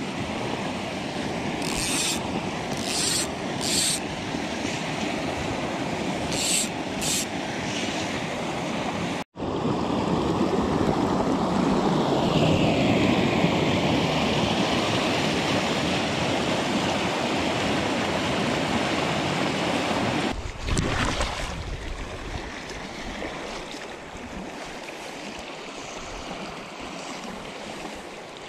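Creek water rushing over rocks in a small riffle, a steady wash heard close from the bank. A few short clicks come in the first seven seconds, a brief low thump about twenty seconds in, and the rush gets quieter near the end.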